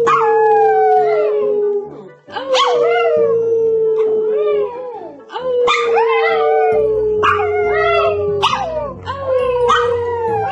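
Shih Tzu howling: four long, held howls of about two seconds each, each sliding slightly down in pitch, with higher wavering notes over them.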